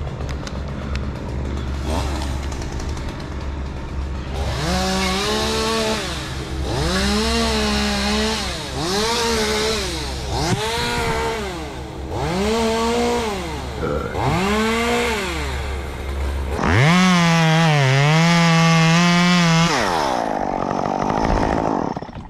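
Two-stroke chainsaw revved to full throttle in six short bursts, each rising and falling in pitch. It is then held for a longer, wavering cut of about three seconds and winds down. A steady low idling hum runs underneath until the long cut.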